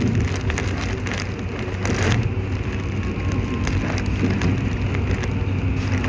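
Heavy rain crackling and ticking against the side window of a Toei 5500-series train, over the steady low rumble of the train running.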